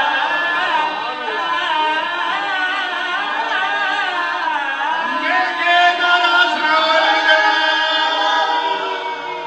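A group of men singing a devotional chorus together without instruments, their voices gliding through a melismatic line and then settling into long held notes in the second half.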